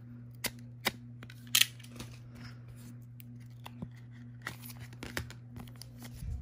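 Utility knife blade cutting washi tape on a rigid plastic toploader: a few sharp clicks and scratchy strokes, the loudest about a second and a half in, then more scraping and rustling of plastic at around four and a half to five seconds. A steady low hum runs underneath.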